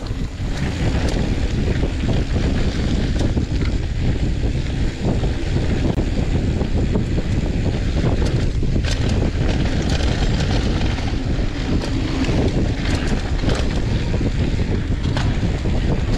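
Wind buffeting the microphone of a mountain biker's camera at speed, over a steady rumble of knobby tyres rolling on loose, dusty dirt singletrack. Scattered sharp clicks and rattles come through, more of them in the second half.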